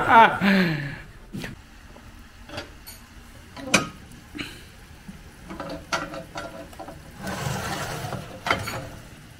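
A laugh trails off at the start, then metal clanks and knocks from the oven door of a wood-burning cooking stove being worked open with a cloth, the loudest about a third of the way in.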